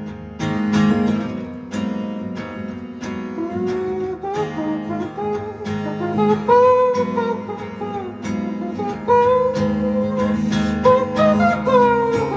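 Acoustic guitar strummed in steady strokes during an instrumental break of a live song, with a wavering melody line above it from a few seconds in.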